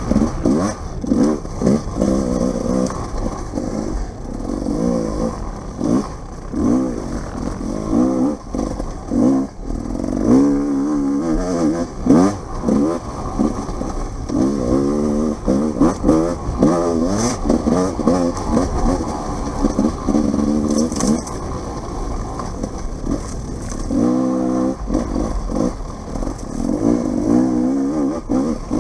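Dirt bike engine being ridden hard off-road, its revs rising and falling over and over as the throttle is worked, with clattering knocks mixed in.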